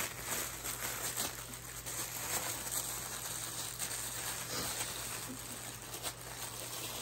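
Packaging rustling and crinkling with light handling as a small resin bowl is unwrapped, irregular and without a beat.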